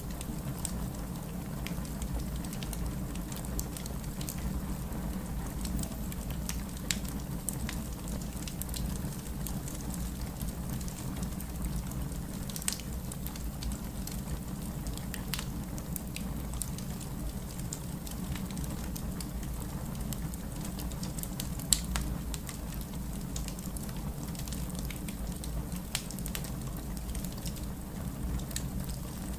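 Wood fire burning in a fireplace: a steady low rumble with scattered sharp crackles and pops, one louder pop about two-thirds of the way through.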